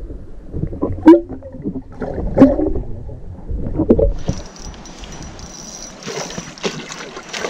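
Muffled underwater sound from a camera submerged in a river, with low sloshing and three louder thuds and gurgles. About four seconds in it changes to open-air river water with light splashing at the surface, where a hooked sucker is being played on the line.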